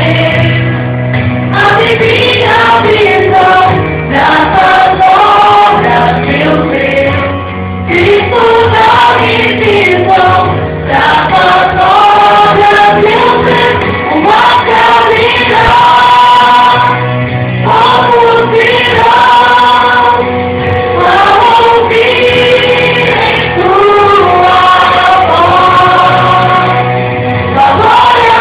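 Gospel choir singing in harmony over instrumental accompaniment, with sustained melodic vocal lines.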